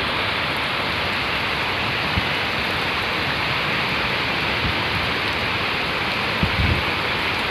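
Heavy rain pouring down in a steady, dense hiss, with a few short low thumps about two seconds in and again near six and a half seconds.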